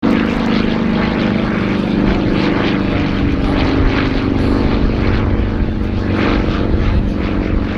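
Pitts Model 12 aerobatic biplane's nine-cylinder radial engine and propeller running at a steady, loud, even note.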